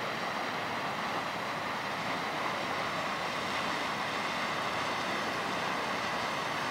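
Steady running noise of a passing inland motor cargo barge's diesel engine.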